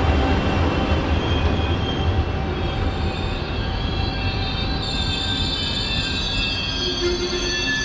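Train wheels rumbling on the rails, the rumble easing, with several high steady squealing tones from the wheels joining in from about three seconds in.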